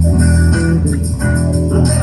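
Electric bass guitar played with the fingers, running a blues line over other backing instruments in a full band mix.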